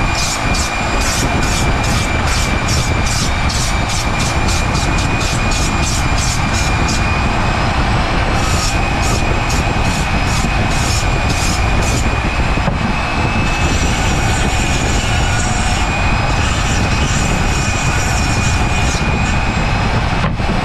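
Flex-shaft rotary tool running with a steady high whine while its burr grinds into a cork decoy body, giving a rasping scratch in quick repeated strokes, about three a second. The tool briefly lets up about two-thirds of the way through.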